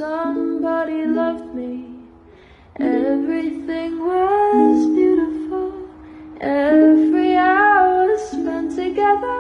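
Background song: a woman singing in three phrases over a soft instrumental accompaniment.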